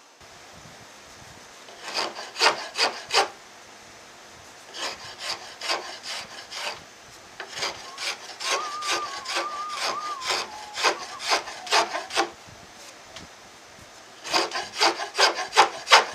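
A hand rasp scraping along a wooden guitar neck as it is carved to shape. It makes short strokes about three a second, in four bursts with brief pauses between them.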